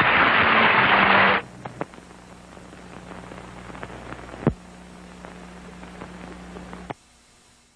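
Studio audience applauding, cut off abruptly about a second and a half in. Then several seconds of crackling hiss with a steady low hum and scattered clicks, the surface noise of an old recording, fading to silence near the end.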